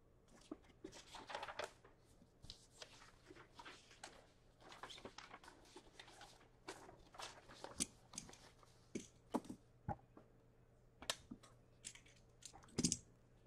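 Scattered rustling and crinkling of paper and packaging being handled, with light clicks throughout and the loudest clatter near the end.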